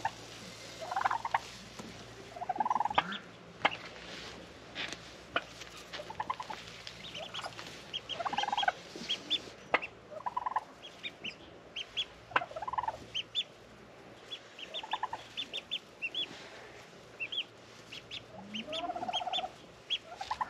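Broody turkey hen giving short clucking calls every second or two, over quick, high peeping from newly hatched ducklings in the nest, with a few sharp clicks.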